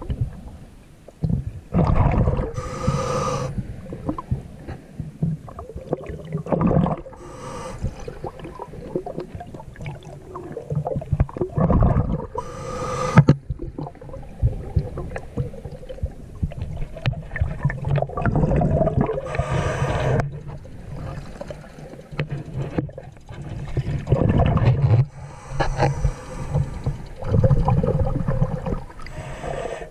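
Water heard underwater: gurgling, bubbling rushes that swell every few seconds over a steady low hum, as the camera is moved through the water.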